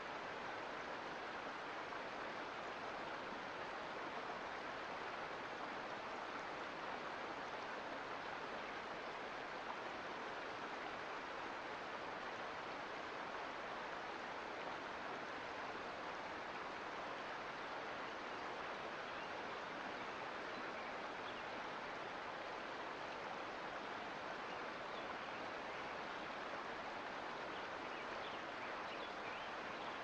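Steady rush of a mountain creek's flowing water, even and unbroken throughout.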